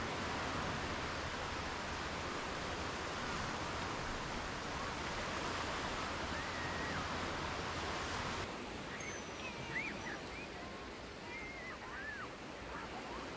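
Small waves breaking and washing up a sandy beach, a steady hiss of surf. About eight seconds in the surf turns quieter, with a few faint distant calls over it.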